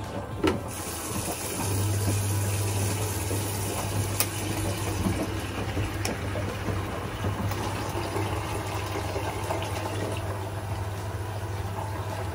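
Water from a bathtub mixer tap pouring into a plastic bucket and filling it, starting about half a second in, with a steady low hum alongside.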